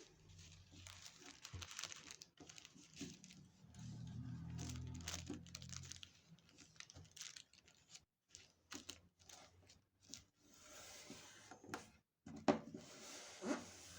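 Tissue paper rustling and crinkling as it is folded and creased by hand, with two short louder taps near the end.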